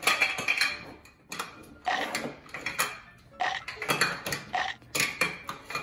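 Toy pizza slices and a plastic plate clattering and knocking on a children's plastic table as they are handled and shuffled, in short bursts of clicks about once or twice a second.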